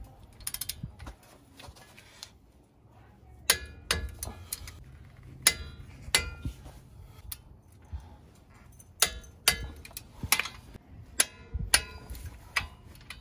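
Torque wrench and socket on the wheel hub assembly's bolts to the steering knuckle of a Dana 30 front axle: sharp metallic clicks and clinks with a short ring, about a dozen, irregularly spaced, with a quick run of ticks near the start. The hub bolts are being torqued to 75 foot-pounds.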